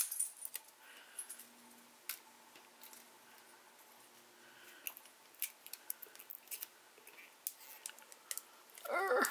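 Fingernails picking and scratching at the edge of a roll of washi tape, trying to lift its end: faint, irregular small clicks and scrapes.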